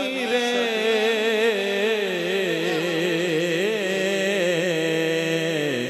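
A male naat reciter singing a devotional kalam into a microphone. He draws one word out into a long, wavering, melismatic note, and the pitch drops away just before the end.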